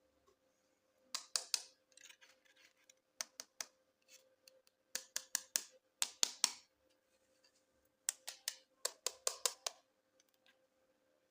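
Plastic toys and packaging handled by hand: short clusters of sharp clicks and rustles every second or two, over a faint steady hum.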